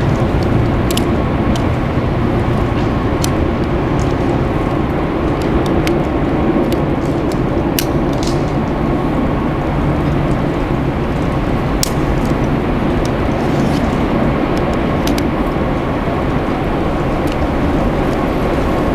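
A loud, steady rushing noise that barely changes, with a few faint clicks scattered through it.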